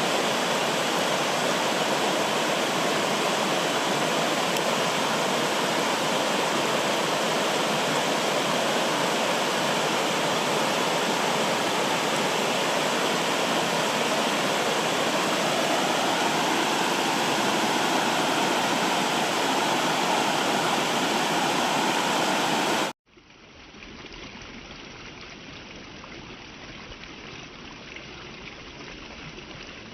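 Loud, steady rushing water, as of a stream or cascade. About 23 seconds in it cuts off abruptly, and a quieter, duller flow of water takes over.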